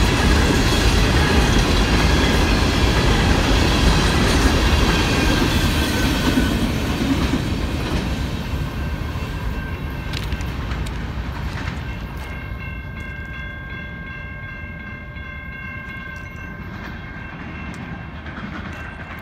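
Coal train's cars rumbling and clattering past on the rails, loud at first and fading from about eight seconds in as the train moves away. In the second half a steady, high-pitched tone comes in and holds to the end.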